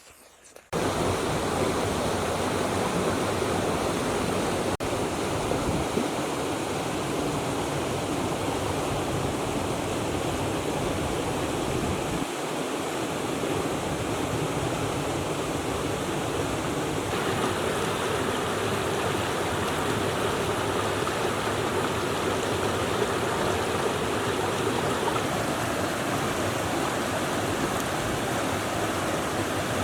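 Steady rushing of running stream water, starting abruptly about a second in.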